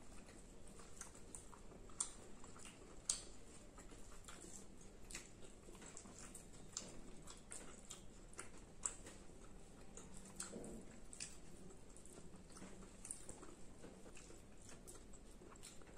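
Quiet eating sounds from two people eating rice and Manchurian with their hands: chewing and mouth clicks, with irregular small clicks throughout and two sharper ones about two and three seconds in.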